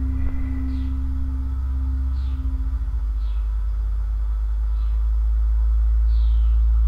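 Ambient film score: a loud low drone with a sustained humming tone that stops about halfway. Short, high, falling chirps repeat roughly once a second over it.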